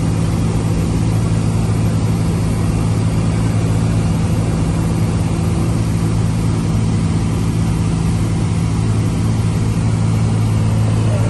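Cessna 182T Skylane's six-cylinder Lycoming engine and propeller droning steadily in flight, heard from inside the cabin.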